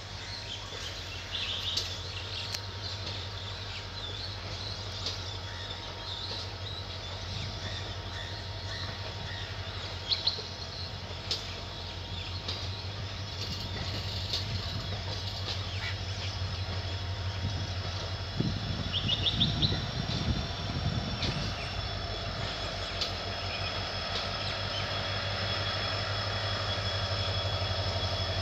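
WDP4D diesel-electric locomotive's 16-cylinder two-stroke EMD engine running steadily as it reverses a rake of passenger coaches, a low hum growing louder toward the end. A high whine strengthens in the second half, with a spell of heavier knocking about two-thirds of the way in.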